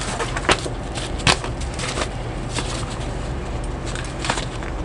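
A camouflage paintball pouch in a clear plastic bag being handled: soft plastic rustling with a few sharp crinkles or clicks, over a steady low hum.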